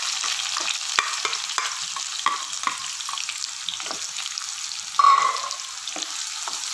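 Sliced onions sizzling in hot oil with whole spices in a non-stick kadai, with a spoon stirring them and scraping the pan in many short strokes. A brief louder sound comes about five seconds in.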